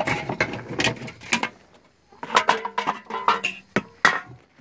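Irregular knocks and clicks of handling a fish and a plastic measuring board.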